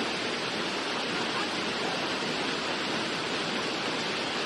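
Steady, even rushing of water from a torrential downpour over a flooded street, with no breaks or sudden sounds.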